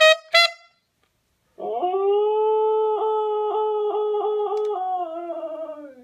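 A husky howling: one long, steady howl that begins after a short pause, holds its pitch with a slight waver, then sags and fades near the end. A brief pitched note sounds at the very start.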